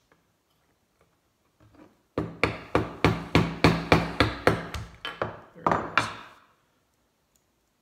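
Claw hammer tapping on a small nail used as a punch, about fifteen quick, light strikes at roughly three a second, driving a 1/16-inch roll pin out of a key-fob knuckle.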